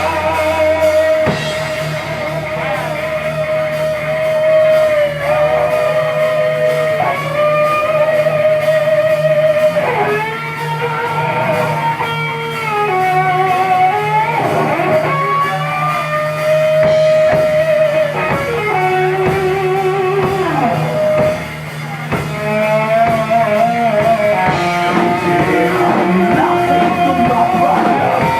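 Live heavy metal band playing: lead electric guitar carrying a melody of long held notes with vibrato and bends, over rhythm guitar, bass and drums.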